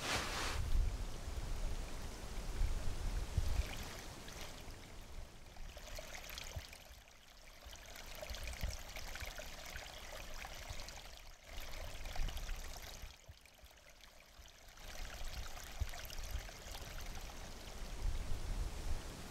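A steady rushing noise with a low rumble beneath it, easing quieter twice in the middle.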